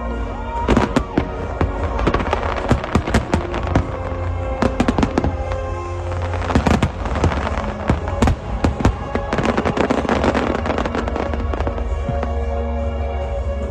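Fireworks going off in many rapid sharp bangs and crackles, with music playing throughout.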